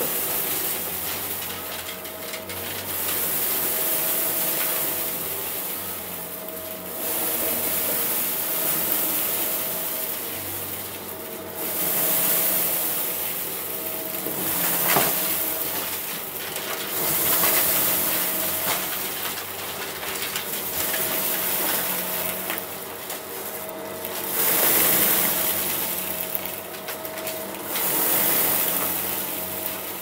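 Shark upright vacuum running over carpet, its brushroll head sucking up a scattered mess of debris in back-and-forth passes. The sound swells and falls every few seconds with each pass, with one sharp click about halfway through.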